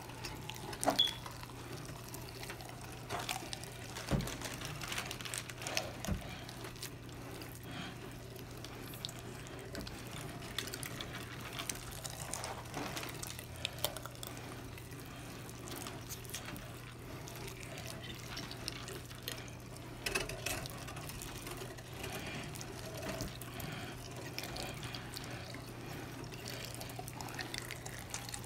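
Meat grinder grinding raw chicken breast: a steady low hum under scattered clicks and knocks as the meat is fed through.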